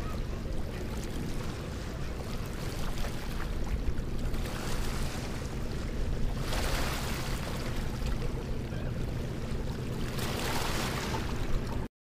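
Choppy sea waves washing against concrete pier pilings and a seawall: a steady rush of water over a low rumble, swelling louder about six and a half seconds in and again around ten seconds. The sound cuts off abruptly just before the end.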